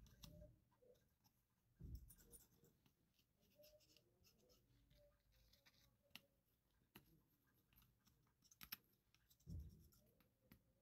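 Near silence, broken by faint scattered clicks and scrapes of steel tweezers and a soldering iron tip working on components inside a small metal enclosure, with a couple of soft low thumps.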